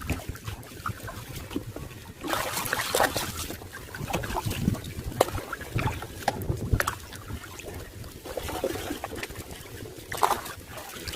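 Shallow muddy water splashing and sloshing in irregular bursts, with scattered sharp splats, as people wade and grope through it by hand.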